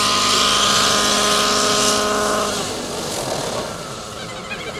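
Nitro-powered RC helicopter's glow engine and rotor running steadily, then cut about halfway through: the engine tone stops and the sound falls away to a quieter hiss.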